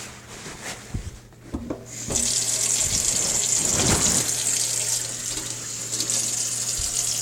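A few knocks, then a faucet turned on about two seconds in, running steadily into a sink.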